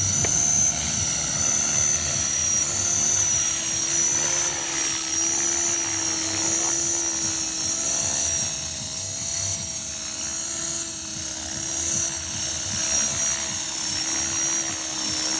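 Radio-controlled model helicopter in flight, a steady high whine of motor and rotor over a lower drone, wavering slightly in pitch as it hovers low.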